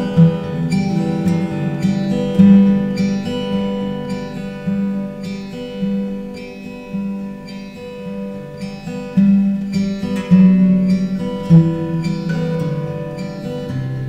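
Acoustic guitar music: chords strummed in a steady rhythm over sustained notes.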